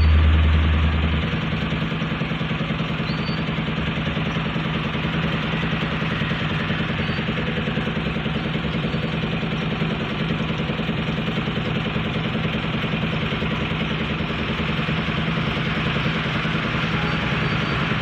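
An engine idling steadily, with a deeper rumble that cuts out about a second in.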